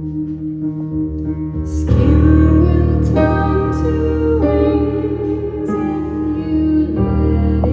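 Live band music: a sustained chord, then about two seconds in the full band comes in louder, with drums and cymbal crashes.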